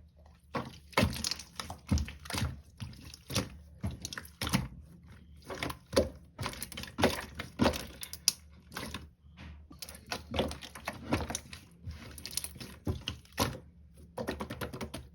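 Irregular close-up handling noises: quick clicks, taps and knocks with brief rustling, as small objects are picked up and set down.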